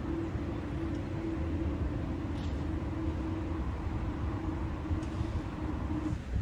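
Steady low mechanical rumble with a faint, slightly wavering hum, unchanging until it changes abruptly near the end.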